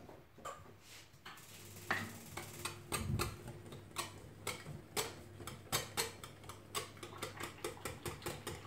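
Wire whisk beating pancake batter in a glass bowl, clicking against the bowl's side: a few scattered ticks at first, then about three a second from about three seconds in.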